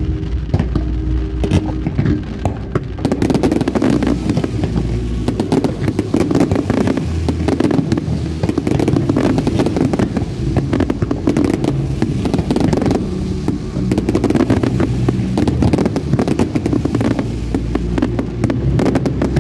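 Fireworks bursting and crackling in rapid succession over a steady low rumble. The pops get much thicker from about three seconds in.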